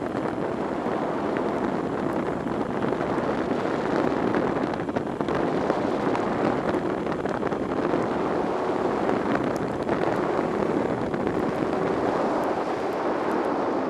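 A motorcycle riding at road speed on a wet road: a steady rush of wind over the camera microphone, mixed with the running engine and the noise of the tyres on wet tarmac.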